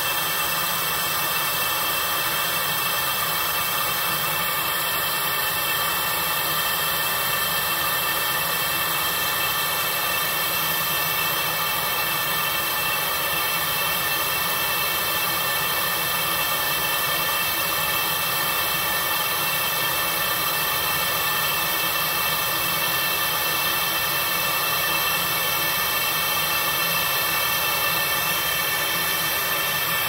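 Z Tech QM Plus laser engraver running while it engraves sterling silver: a steady rushing machine noise, like a fan or blower, with several steady high tones on top.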